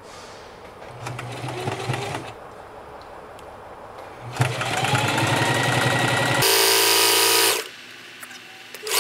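Electric sewing machine stitching through layered fabric in bursts: a short run about a second in, then a longer, louder run from about four and a half seconds in as the motor speeds up. Twice near the end a loud, horn-like buzzing tone sounds, each about a second long.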